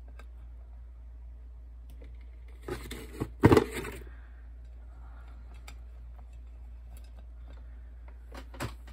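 Small plastic dolls being handled and set down on a tray: a cluster of clicks and knocks about three to four seconds in, then a few light taps near the end.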